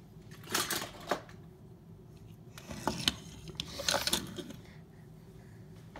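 Light clattering and clicking of small hard objects knocking together, in three short bursts.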